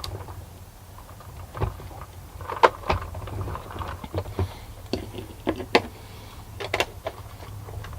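Milton Bradley Big Trak toy's small electric drive motors running with a low hum, with a series of sharp clicks and knocks from the toy.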